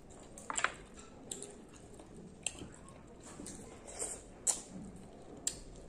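Wet mouth clicks and smacks of someone eating orange segments close to the microphone, about six short sharp clicks spread out over a few seconds.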